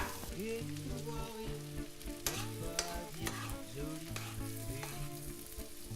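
Roughly chopped onion sizzling in oil in a frying pan while it is stirred, with a few sharp scrapes and clicks of the utensil against the pan.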